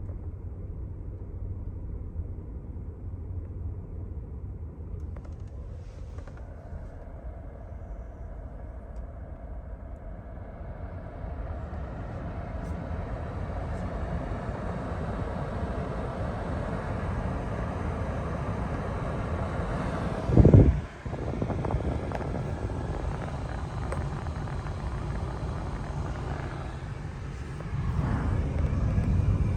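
Toyota Land Cruiser 300 on the move: a steady low rumble of road and engine noise that grows as it gathers speed, with one loud thump about twenty seconds in and a further rise in level near the end.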